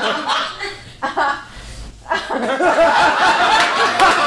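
Audience laughing: scattered chuckles at first, then from about two seconds in a louder, fuller wave of laughter from many people.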